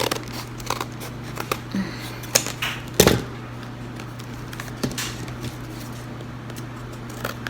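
Scissors cutting around the edges of earphone packaging: irregular snips and clicks, the loudest about three seconds in, over a steady low hum.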